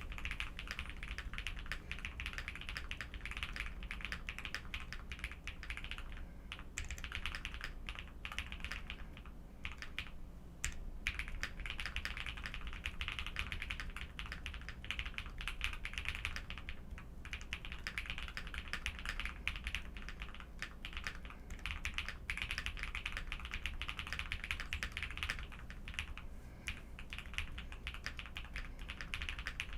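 Steady fast typing on a Jelly Epoch mechanical keyboard with Durock POM linear switches: a dense run of keystroke clicks, broken by a few short pauses.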